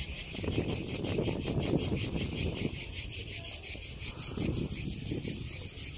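Cicadas singing in a steady chorus, a high, fast-pulsing buzz. A ragged low rumble lies underneath, strongest in the first half.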